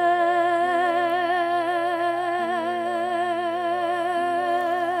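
A young female singer holds one long closing note with wide vibrato, over accompaniment chords that shift twice beneath it.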